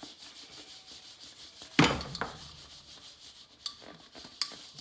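Baked doughnuts tumbling in spiced sugar inside a large stainless steel mixing bowl as it is swirled and tossed: a soft rubbing, with one sharp knock about two seconds in and a few lighter clicks near the end.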